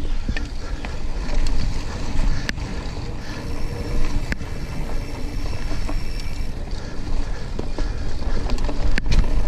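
Mountain bike riding over a dirt singletrack trail: a steady rumble of tyres on the ground and wind buffeting the camera microphone, with a few sharp knocks.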